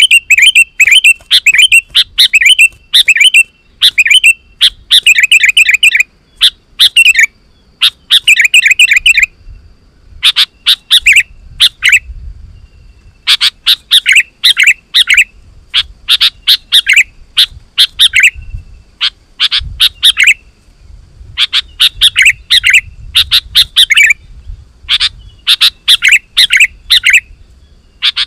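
Sooty-headed bulbul (kutilang) singing loudly and energetically in repeated short bursts of rapid, chattering notes, with a brief pause about ten seconds in.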